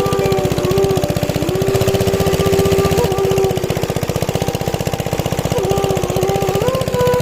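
Background music: a flute-like melody of held notes that step up and down, over a fast, steady low pulse.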